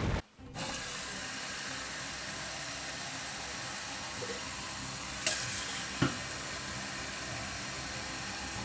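Kitchen faucet running steadily into a glass jar, with two light knocks about five and six seconds in.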